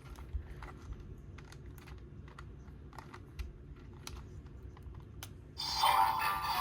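Scattered light clicks and taps of hard plastic as a small toy is handled. About five and a half seconds in, the DX Gochizo toy's electronic sound effects start up loud through its small built-in speaker.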